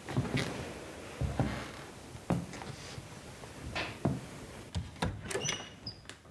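Foley sound effects: a string of irregular knocks and thuds with short scraping sounds between them, and a few brief high squeaks near the end.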